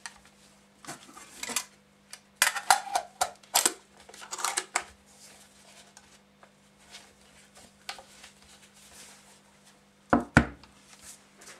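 Metal clicks and rattles of a loaded Suomi KP31 70-round drum magazine being handled while its cover is fitted back on over the cartridges, in several quick clusters. Two sharp knocks come about ten seconds in.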